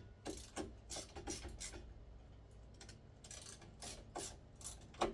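Irregular small clicks and knocks of a ceiling fan blade and its mounting hardware being handled and pushed, as it is forced into a fitting where it will not seat properly. The clicks come in two clusters, with a louder knock near the end.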